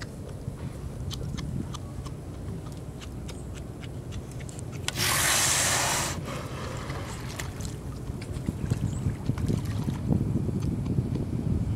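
A Steller sea lion surfacing and blowing out one loud, hissing breath through its nostrils for about a second, midway through. Under it runs a low steady rumble of wind and water, with choppier water sound near the end as the animal swims past.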